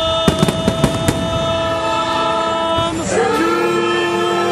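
Fireworks show soundtrack music holding one long chord, moving to a new held chord about three seconds in, with a quick run of sharp firework bangs in the first second.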